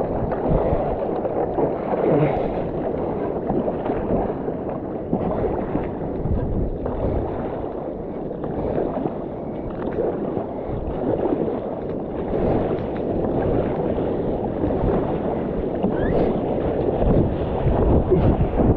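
Seawater splashing and lapping around a stand-up paddleboard, mixed with wind buffeting the microphone: a continuous rough wash that swells and eases irregularly.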